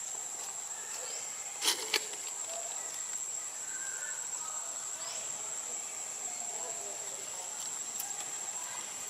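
Steady high-pitched insect drone from the surrounding vegetation, with two short sharp clicks about two seconds in.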